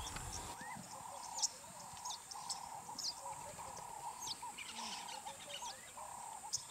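Birds calling in the bush: many short, sharp high chirps over a lower run of quick repeated notes, with a steady high hiss behind. A low rumble cuts off about half a second in.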